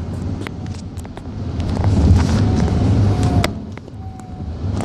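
Steady road and engine rumble of a car being driven, with scattered sharp pops and cracks from distant fireworks, one louder crack about three and a half seconds in.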